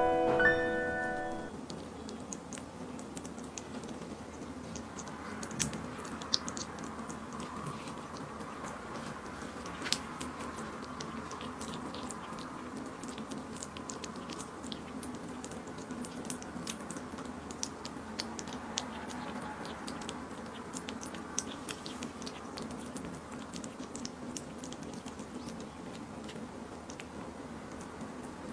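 Kitten eating raw chicken close to the microphone: wet licking, smacking and chewing with many small irregular clicks. A piano tune dies away in the first second or two.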